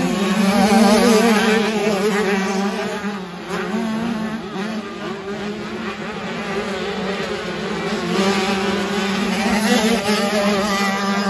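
Off-road motorcycle engine running at fairly steady revs, its buzzing pitch wavering with small throttle changes and rising a little about a second in and again near the end.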